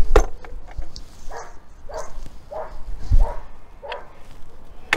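A dog barking in a steady run of short barks, about one every two-thirds of a second. Sharp clicks of the miter saw being handled are heard just after the start and again near the end.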